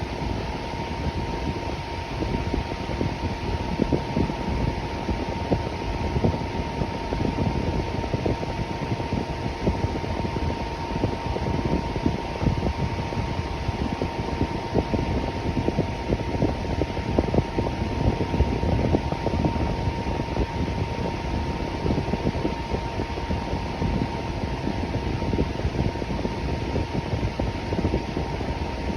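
Electric fan running steadily, a constant whooshing hum with a thin steady whine just under 1 kHz.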